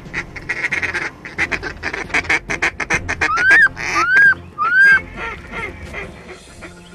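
Goose calling: a fast run of short clucks, about five or six a second, then three loud rising honks just past the middle, with the clucking trailing off afterwards.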